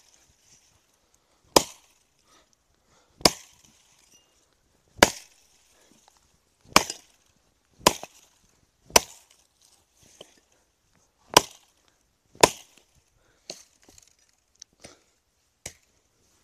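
Axe chopping logs into firewood: eight sharp, separate strikes into the wood, roughly one every one to two seconds, followed by a few lighter knocks near the end.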